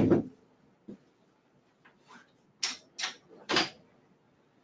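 A few sharp clicks and clacks, three loud ones in quick succession past the middle, as a lateral bolster is taken off the back frame of a positioning wheelchair.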